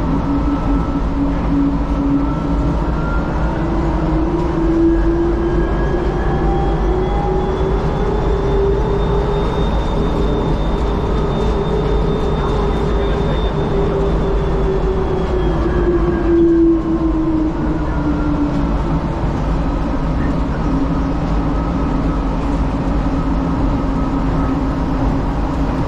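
DFW Skylink automated people-mover train heard from inside the car as it runs along its elevated guideway: a steady rumble with an electric motor whine that rises in pitch over the first several seconds, holds, then falls from about 14 to 19 seconds in as the train slows.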